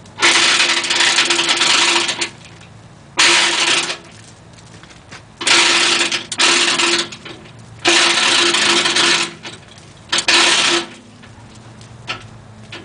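Hand chain hoist being worked hand over hand, its chain clattering through the hoist in five loud rattling runs separated by short pauses.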